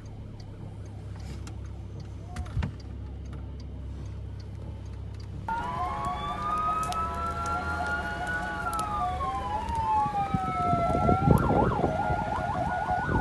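Emergency-vehicle sirens wailing, at least two at once, their pitches sliding up and down and crossing, starting suddenly about five seconds in and turning into a quicker warble near the end. Before that only a low steady rumble with one thud.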